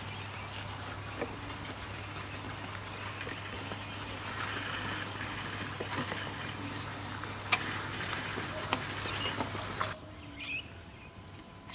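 G scale model electric railcar running past close by: a steady motor hum with its wheels clicking over the track, the clicks sharpest near the end of the pass. The sound then drops suddenly to quieter outdoor background with a bird chirping.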